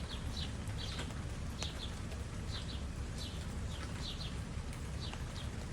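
Small birds chirping: short high chirps, often in pairs, every half second or so, over the steady hiss of light rain and a low rumble.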